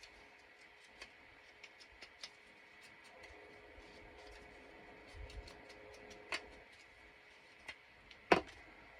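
Scattered light clicks and taps of paper and crafting tools being handled, with one sharp click about eight seconds in.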